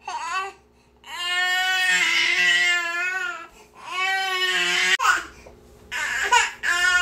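Baby girl crying: a short cry, then two long wavering wails, breaking into shorter sobbing cries near the end.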